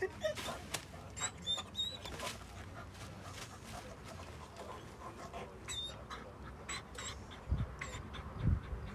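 Dogs at play: a dog scuffling and lunging at another, with many short clicks and a few brief high whines. Two low thumps near the end.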